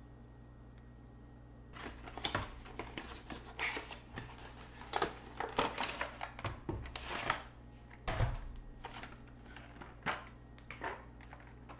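A clear plastic packaging tray and its cardboard box being handled: irregular crinkles, clicks and taps of stiff plastic, starting about two seconds in.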